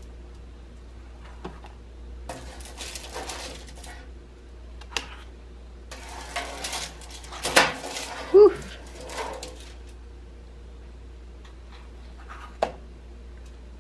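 Plastic spatula scraping and tapping on a foil-lined baking sheet and a paper plate, with foil crinkling, in scattered bursts. A short squeaky sound about eight seconds in is the loudest moment.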